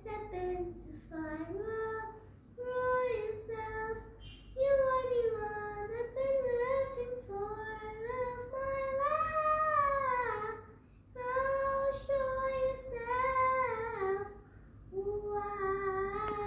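A young girl singing solo without accompaniment, in long held phrases whose pitch glides up and down, with short breaths between them.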